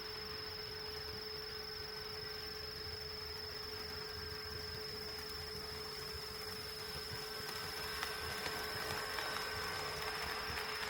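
HO scale model train running on KATO Unitrack, with a steady electrical hum and a high whine. About eight seconds in, the rolling noise grows louder and light clicks of wheels over track joints come in as a train nears.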